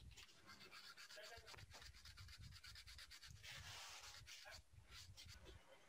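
Near silence, with faint scattered clicks and light scratching.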